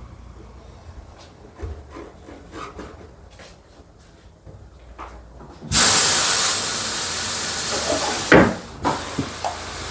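A few light clicks and taps, then about halfway a sudden loud hiss of compressed air from a pneumatic tyre changer, lasting about three seconds. A sharp knock comes near the end of the hiss, followed by a few smaller knocks.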